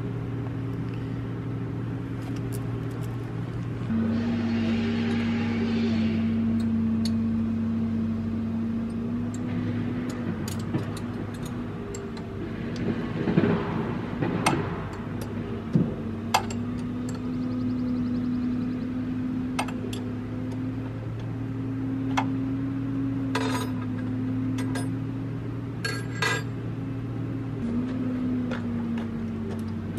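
Diesel engine of the log-loader carrying a Rotobec grapple saw, idling steadily and stepping up slightly in pitch about four seconds in. Scattered metallic clinks from the saw's bar and chain being handled.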